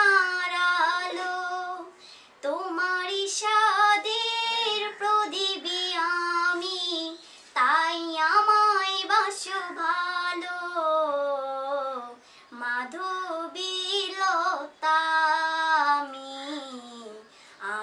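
A young woman singing a Bengali song unaccompanied, in long held phrases with brief pauses between them about every five seconds.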